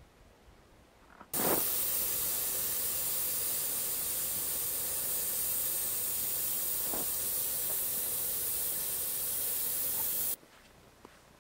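Air hissing out of the UAZ Patriot's off-road tyre valve as the tyre is let down. A steady hiss that starts sharply about a second in and stops abruptly near the end.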